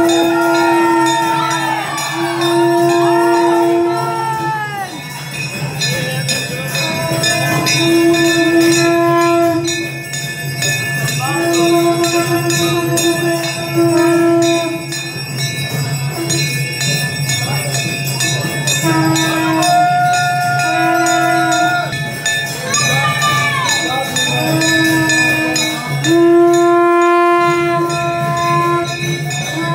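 Small bells ringing without a break over a group of voices chanting in long held notes that slide at their ends, above a low steady hum.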